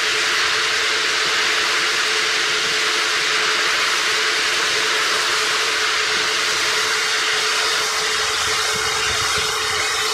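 Pistachio hulling machine running: a steady rushing noise over a constant hum.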